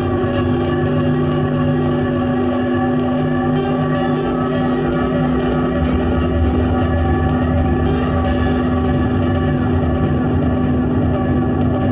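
Ukulele stretched into an ambient drone through effects and tape looping: held, overlapping tones with echo and reverb, steady in level.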